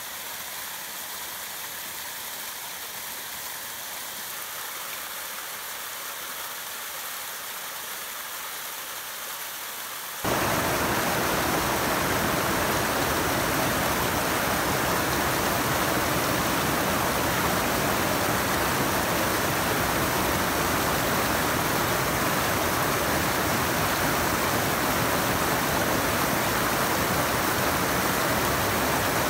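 Steady rush of creek water over small cascades and falls. About ten seconds in it jumps suddenly to a louder, fuller rush that then holds steady.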